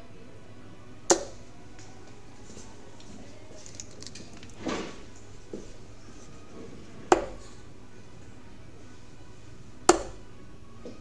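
Steel-tip darts striking a Winmau Blade bristle dartboard: three sharp, short hits, about one second in, then about seven and ten seconds in. A softer rustle comes near the middle.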